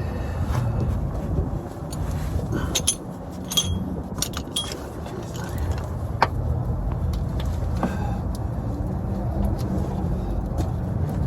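Wind buffeting the microphone with a steady low rumble, with a few scattered metallic clinks of tools or parts.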